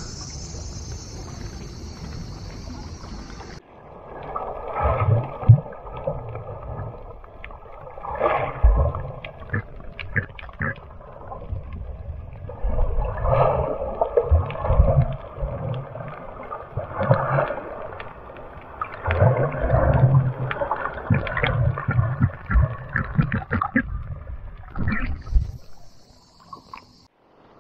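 Insects chirring steadily for the first few seconds, then an abrupt change to muffled water sloshing, gurgling and irregular thumps, as heard through a camera dipped under the sea surface.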